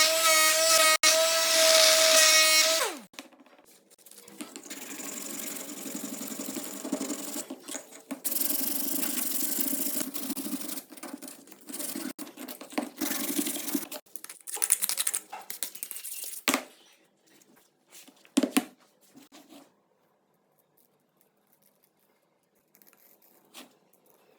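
A small electric power tool running at a steady high pitch, then switched off and spinning down about three seconds in. Rough scraping work follows for about ten seconds, then scattered knocks and clicks from handling.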